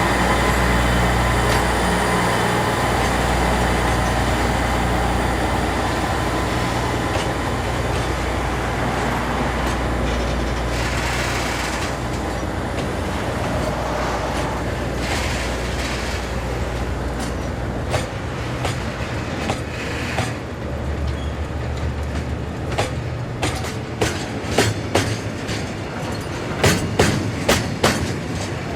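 Diesel freight locomotive running with a steady low drone, then freight wagons rolling over rail joints. Sparse clicks become loud, regular clickety-clack in pairs over the last few seconds.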